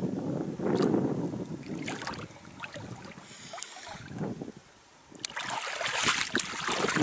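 Water sloshing and dripping as a person moves in shallow water, then louder splashing from about five seconds in as she scoops water with her hands. Wind rumbles on the microphone.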